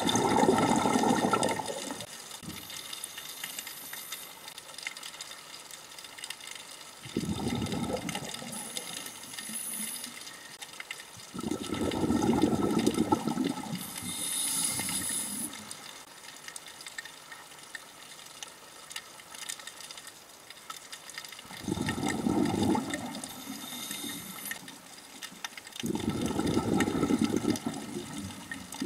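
Scuba diver breathing through a regulator, recorded underwater: five bursts of exhaled bubbles rumble past a few seconds apart, with quieter hissing in between.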